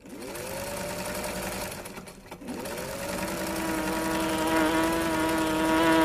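Electric sewing machine starting and running at speed with a rapid stitching rhythm. Its motor whine rises in pitch as it starts, cuts out briefly about two seconds in, spins up again and runs steadily, getting louder.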